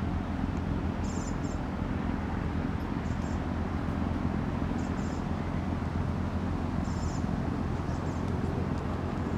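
Steady low outdoor rumble, with short high bird chirps every second or two.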